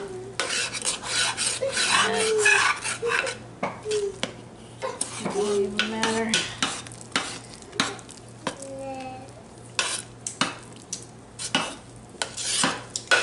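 A metal spoon stirring thick hot-process soap paste in a crockpot, with repeated scraping and clicking against the pot, as the superfat butters and oils are mixed into the cooked soap.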